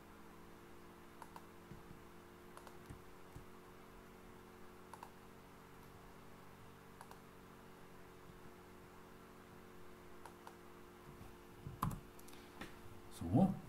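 Sparse, faint computer mouse clicks and a keyboard keypress over a steady low electrical hum; the loudest click comes near the end.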